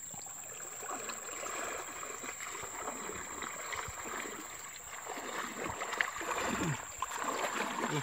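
Hands rummaging through wet leaf litter in a mesh hand net, with water trickling and splashing through the netting and small clicks of twigs and debris being moved.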